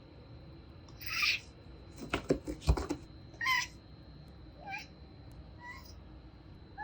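Bengal cat meowing in short calls, about four times, the later ones fainter. A quick run of sharp clicks comes between the first and second calls.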